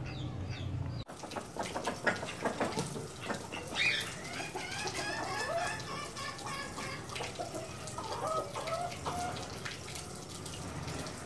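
Chickens clucking in a yard, many short calls one after another, with ducks dabbling and splashing in a shallow pan of water.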